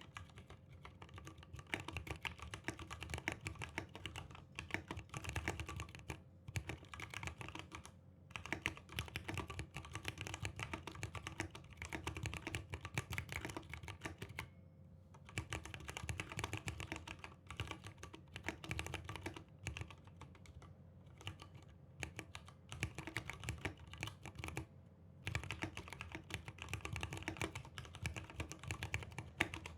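Mechanical keyboard typed on in fast runs of keystrokes, broken by a few brief pauses. Its switch springs are not yet lubricated, which the owner finds too loud.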